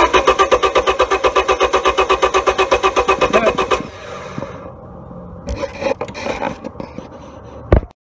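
1999 Honda Civic 1.6-litre SOHC VTEC four-cylinder cranking on the starter motor in a fast, even beat for about four seconds without catching, then stopping: a crank-no-start with no spark from the ignition coil. A few faint clicks and one short sharp knock follow near the end.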